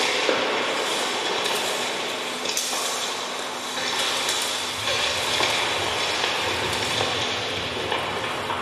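Minimalist live electronic music played through a PA loudspeaker: a dense, noisy texture of short phase-shifted loops over a steady low tone, with scattered clicks. A deeper low rumble joins about five seconds in.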